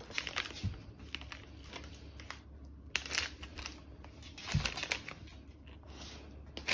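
Plastic food packaging crinkling in a hand in short, scattered rustles.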